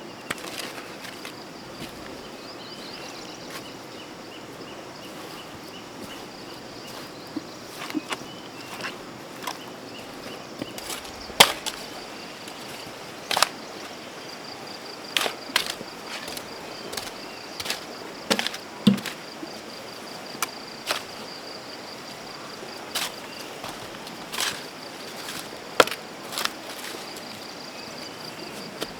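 Irregular sharp knocks, like a hand tool chopping or striking, one every second or two, the loudest near the middle, over a steady high-pitched insect trill.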